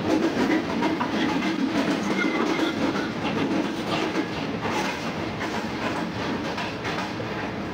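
Passenger train running over rail joints and points, its wheels clattering in a steady stream of clicks. Under the clatter is the steady drone of the train's rear CNR-type generator car.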